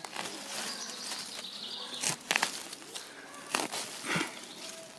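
Fingers and a small hand trowel digging and scraping through woodland soil and leaf litter, loosening the earth around a pignut root. A rustling, scratching sound with a few sharper scrapes around the middle and again shortly before the end.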